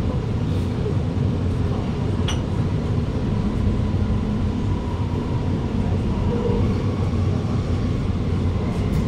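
Alstom Movia R151 metro train running along the line, heard from inside the carriage as a steady low rumble with a faint whine. A single brief click comes about two seconds in.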